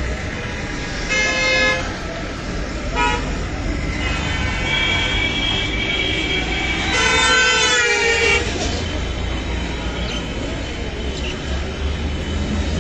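Vehicle horns honking in street traffic: several honks, a short one about a second in, a brief toot near three seconds and the loudest and longest about seven seconds in, over a steady low rumble.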